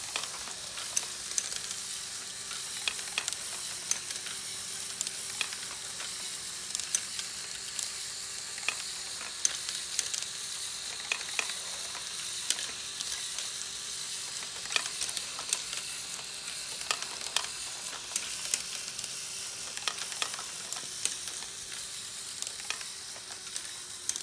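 LEGO Technic Great Ball Contraption module with a scissor lift and ratchet lifter running. A small electric motor hums steadily under a dense clatter of plastic gears, chain links and ratchet clicks, with sharper knocks every second or so as the plastic balls drop and roll.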